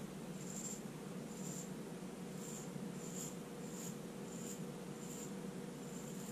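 Vintage straight razor, freshly honed on a 1000/6000-grit stone, shaving lathered whiskers: about eight short, scratchy scraping strokes, a little more than one a second, over a steady low hum.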